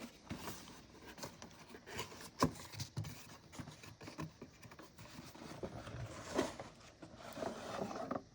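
Faint handling noise: rustling and scraping of a cardboard model-train box, with scattered light clicks and one sharper knock about two and a half seconds in.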